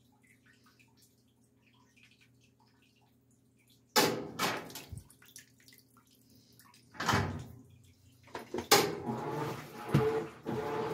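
Top-loading washing machine: its lid is lifted with a sudden clatter about four seconds in and shut with a sharp clack near the end. After that the machine runs with a steady rushing hum.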